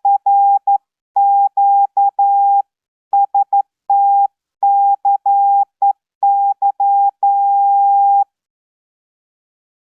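Morse code sidetone from Morse Keyer software, heard as received Zoom audio: a single steady mid-pitched beep keyed on and off in dots and dashes, with faint clicks as each element starts and stops. The sending ends with a long dash about eight seconds in.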